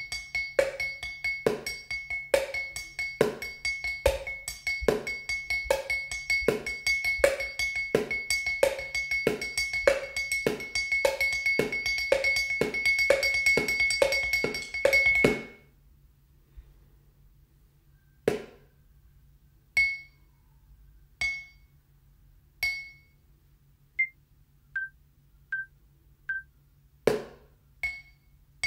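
Kitchen percussion played with sticks on a drinking glass and a plastic food container: a fast, steady groove of ringing glass clinks over duller thuds, which stops about fifteen seconds in. Single strokes then come slowly, a dull thud on the container followed by a few ringing clinks on the glass.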